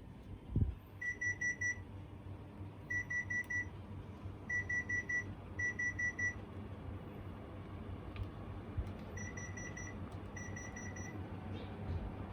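Electronic beeper sounding quick bursts of four short high beeps, six bursts in all, over a low steady hum. There is a single thump shortly after the start.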